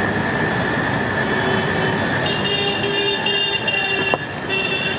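Loud, steady rumbling noise. About two seconds in, a high squealing whine joins it and stops shortly before the end, with a sharp click just after the four-second mark.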